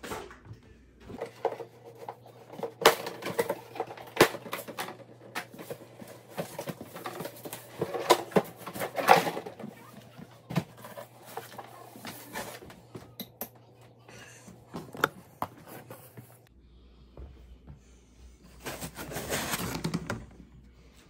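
Cardboard packaging being handled: a large shipping box's flaps and inner lid opened, with scattered knocks, taps and rustling of cardboard and foam. Near the end a longer scraping rustle, like cardboard sliding against foam.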